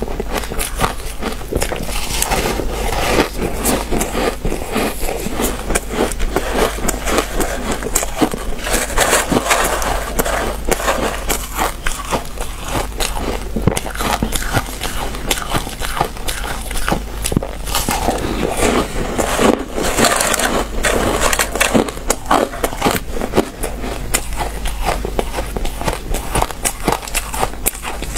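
Close-miked biting and crunching of squeaky purple shaved-ice chunks, a dense unbroken run of crisp crunches and crackles.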